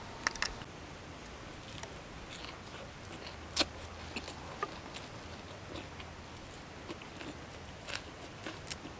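Close-up sounds of a person biting and chewing crisp leafy greens with grilled fish: scattered wet crunches and mouth clicks. The loudest crunch comes about three and a half seconds in.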